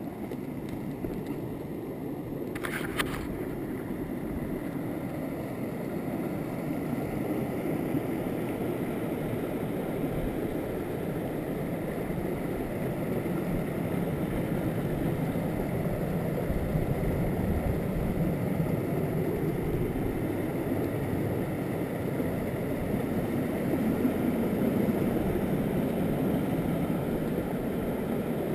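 Small mountain stream rushing over rocky cascades, a steady rush of water that grows gradually louder. A brief rustle or scrape is heard about three seconds in.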